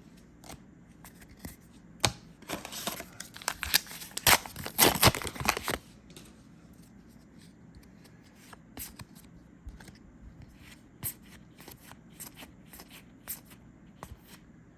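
A foil booster pack is torn open and crinkled for about four seconds, starting about two seconds in. Then come scattered light clicks as the trading cards are flicked through one by one.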